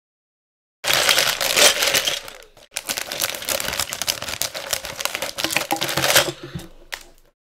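Plastic bag of Lego pieces being handled and opened, the plastic crinkling and the loose bricks clicking and rattling inside. It starts abruptly about a second in and fades just before the end.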